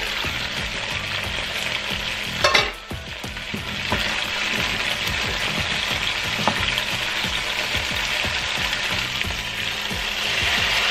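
Food sizzling in hot oil in a cooking pot while it is stirred, a steady frying hiss. There is a brief loud clatter about two and a half seconds in, and a sharp click a few seconds later.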